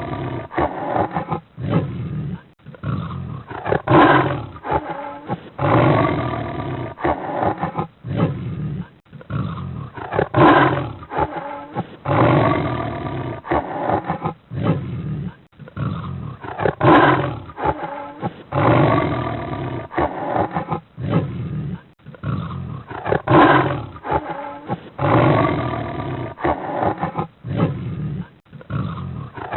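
Cheetah growling and snarling in rough, loud calls one to two seconds long, the same run of calls repeating about every six and a half seconds.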